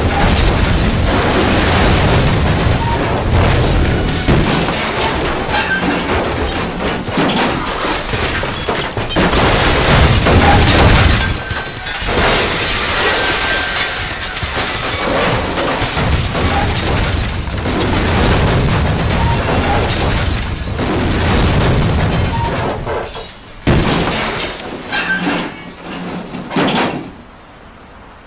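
Dramatised sound effects of a head-on train collision between a freight train and a passenger train: a long, loud run of crashing, booming and breaking metal as the cars pile up. It eases off briefly twice and dies away near the end.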